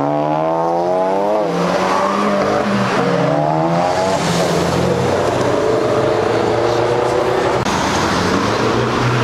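Car engines revving hard as cars accelerate away: two sharp rises in pitch in the first four seconds, then a steadier engine note that breaks off abruptly near the end.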